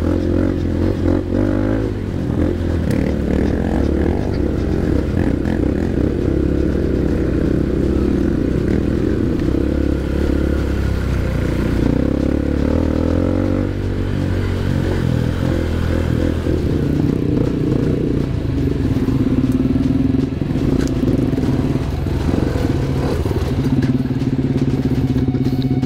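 Honda CRF150L dirt bike's single-cylinder engine running at low revs as the bike is ridden slowly over a rocky trail. The engine note changes a little about halfway through.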